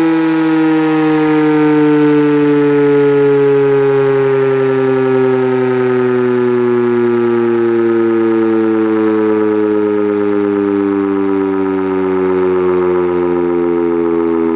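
Federal Signal Model 7 outdoor warning siren, its rotor spun by an electric drill, giving a loud, steady siren tone that slides slowly downward in pitch.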